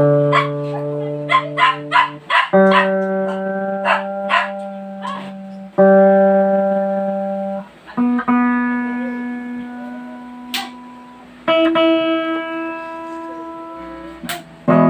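Electric guitar played through a Zoom G5n multi-effects processor: long held notes and chords alternate with quick runs of picked notes. There are two sharp clicks near the end.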